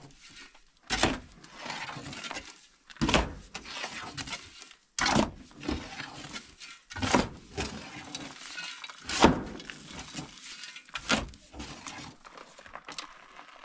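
Shovel digging into a load of sand on a pickup's bed and tipping it into a metal wheelbarrow. A scrape and a pour come about every two seconds, six times.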